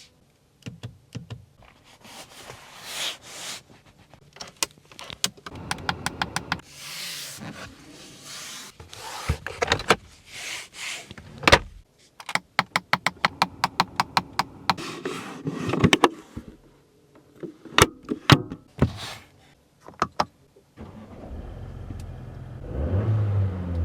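A string of Mercedes-Benz A-Class A200L car sounds: clicks, clunks and short electric motor whirs like power windows working, with a run of rapid clicks midway. About three-quarters of the way through, the engine starts and settles into a low idle rumble that begins to rise near the end.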